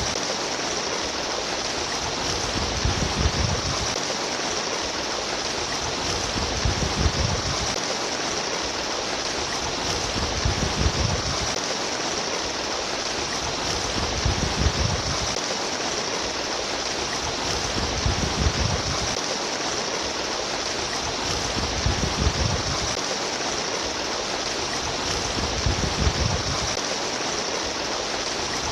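Steady rush of babbling, trickling stream water, with a low rumble that swells and fades about every four seconds.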